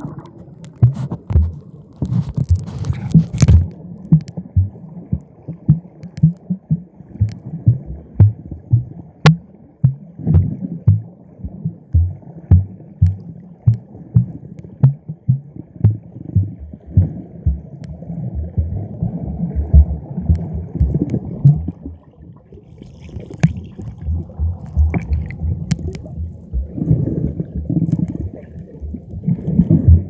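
Muffled, irregular low thumping and gurgling of sea water moving against a camera held underwater, about two or three knocks a second.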